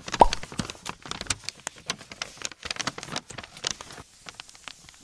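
Paper crumpling and crinkling: an irregular run of sharp crackles that thins out near the end.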